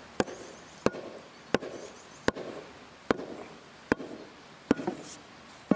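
Steel post hole rammer striking down into a post hole beside a timber strainer post: eight sharp strikes, about one every three-quarters of a second.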